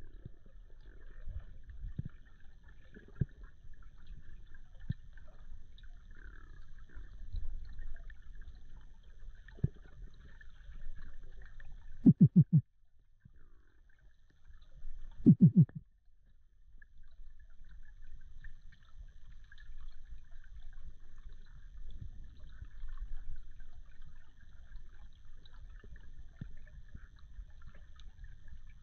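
Muffled underwater sound: a steady low water rumble with faint crackling and scattered clicks. Two loud, short, pulsed buzzing sounds come about 12 and 15 seconds in.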